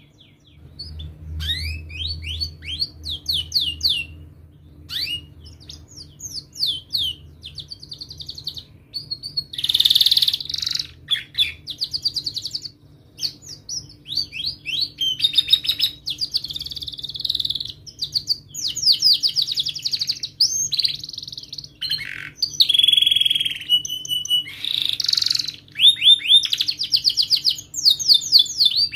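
Domestic canary singing: phrases of fast trills and rolls made of rapidly repeated sweeping chirps, broken by short pauses, with one briefly held whistled note about two-thirds of the way through.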